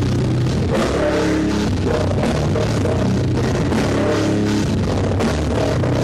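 Heavy metal band playing live: distorted bass and guitar riffing over drums.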